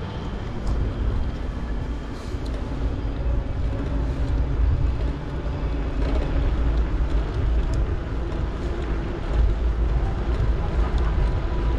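A bicycle ride as heard by an action camera: a steady low rumble of wind on the microphone and tyres rolling over paving stones, with a few faint clicks.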